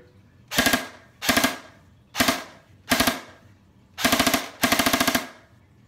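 Snow Wolf airsoft Barrett electric rifle firing on full auto from its stock motor and gearbox, in six quick bursts of rapid shots. The first four bursts are short and the last two are longer.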